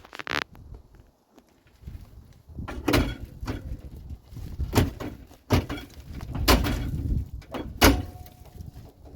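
A series of separate knocks and clunks, about five of them a second or so apart, with rougher handling noise between.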